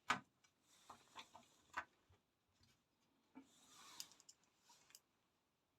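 Faint scattered clicks and light rustling of small screws and metal parts being handled while a radiator is screwed into a PC case.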